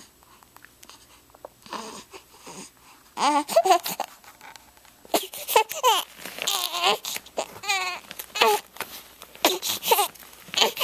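Newborn baby crying: after a quiet start, a run of short fussy cries begins about three seconds in, each bending up and down in pitch, and keeps going to the end.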